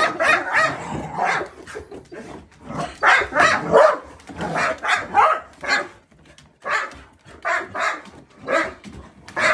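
Dogs barking in quick repeated bursts in excited greeting of their returning owner, with a short lull about six seconds in.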